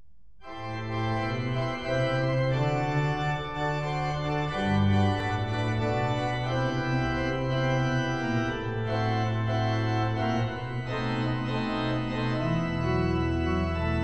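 Church organ playing a prelude: full held chords over sustained bass notes, the harmony moving slowly, starting about half a second in.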